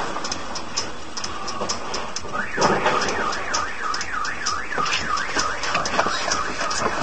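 A car alarm starts about two and a half seconds in, a rapidly rising and falling electronic wail that repeats two or three times a second. It goes off as a runaway horse-drawn cart runs into parked cars.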